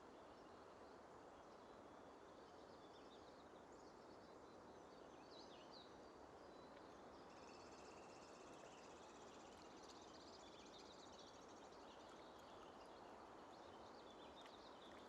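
Very faint natural forest ambience: a steady soft hush with scattered high bird chirps, and a buzzy, fast-pulsing high trill from about seven to ten seconds in.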